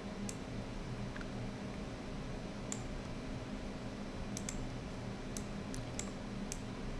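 A handful of faint, scattered computer mouse clicks, about eight spread irregularly, over a steady low hum.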